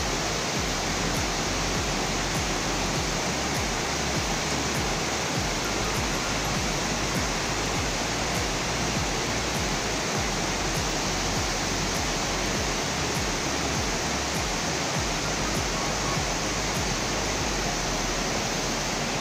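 Cloudburst floodwater rushing down a street in a fast, muddy torrent: a steady, unbroken noise of churning water.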